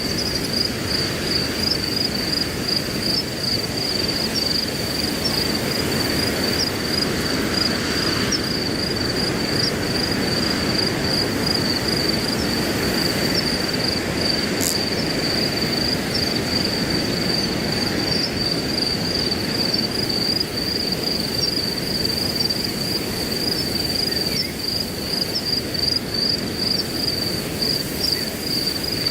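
Crickets chirping steadily in a fast, even pulsing high trill, over a low rushing of wind through grass.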